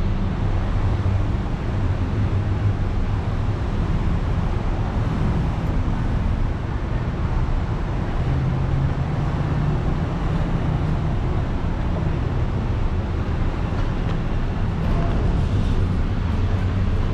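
Road traffic noise: a steady rumble of vehicles passing on the road.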